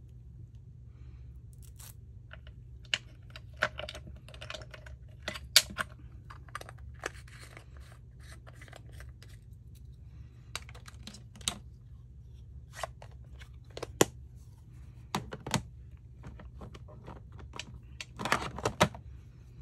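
Irregular clicks, taps and short scratchy rustles of paper-crafting supplies being handled: paper pieces and ink pads at work on a tabletop, with a cluster of clicks near the end. A steady low hum runs underneath.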